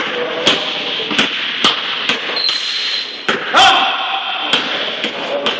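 Basketball dribbled on a hardwood gym floor, bouncing at an uneven rhythm in a large hall, with a short rising squeak about three and a half seconds in.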